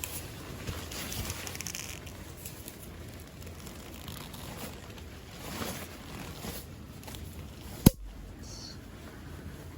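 Gusty wind blowing, with scattered crackles and one sharp, loud snap about eight seconds in.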